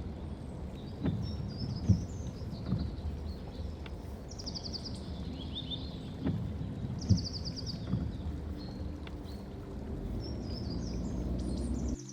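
Forest birds singing: quick, thin phrases and two fast trills, over a steady low rumble that grows toward the end. Two runs of three dull footsteps, about a second apart, stand out as the loudest sounds.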